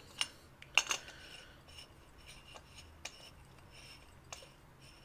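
Metal air-line fittings clinking and knocking as they are handled and screwed together. There are two sharp ringing clinks near the start, then lighter scattered clicks and taps.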